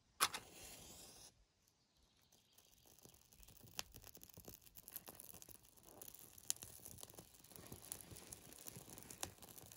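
A match is struck about a quarter second in and flares with a hiss for about a second. Then birch bark and split birch kindling catch and crackle, the crackling growing gradually louder.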